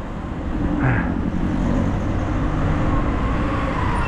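Slow city street traffic: car engines running with road noise as a steady low rumble, and a short higher-pitched sound about a second in.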